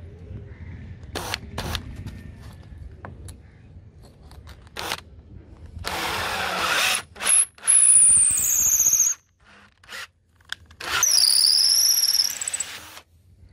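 Cordless drill driving a thread tap into a hole in a redwood handle, cutting threads into the wood. It runs in short bursts, then in three longer runs with a high squealing whine that drops in pitch as the tap bites and wavers near the end.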